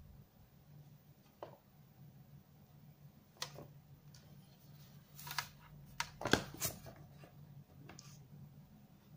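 Light clicks and knocks of a set-top box and its power cable being handled and turned over in the hands, the loudest cluster around six to seven seconds in, over a faint steady low hum.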